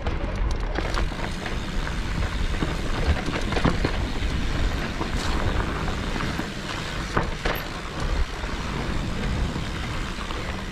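Mountain bike riding on a dirt trail: a steady rumble of wind and tyres on the ground, with scattered sharp knocks and rattles of the bike over rough ground.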